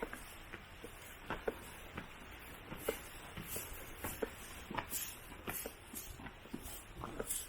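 Footsteps of a person walking, an irregular run of short, sharp steps about one to two a second.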